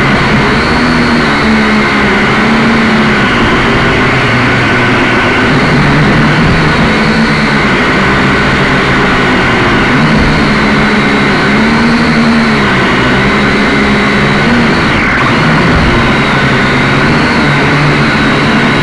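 Quadcopter's electric motors and propellers running loudly, heard right at the craft from its onboard camera. It is a steady whine with several tones, the lower pitches rising and falling in slow swells as the throttle changes during the descent.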